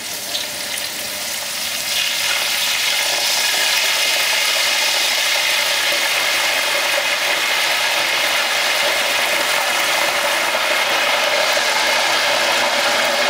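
Raw mushrooms deep-frying in an electric deep fryer: hot oil sizzling and bubbling hard, a crackling hiss that builds over the first two seconds and then holds steady.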